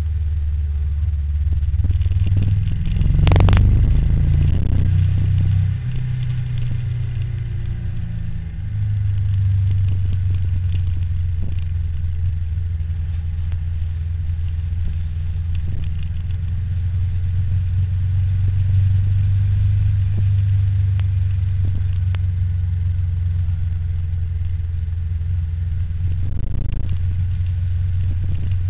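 Steady low rumble of riding on the road, with a single sharp loud knock about three seconds in.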